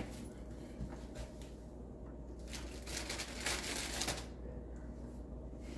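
Plastic crinkling and rustling in irregular strokes, loudest for a stretch about three seconds in.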